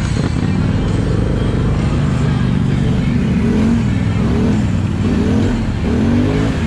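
ATV engine revving up and down repeatedly, its pitch rising and falling in several swells, most clearly in the second half.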